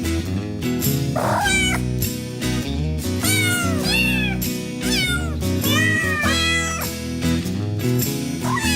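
A domestic cat meowing several times, each meow bending up and then falling in pitch, over background music with steady low notes.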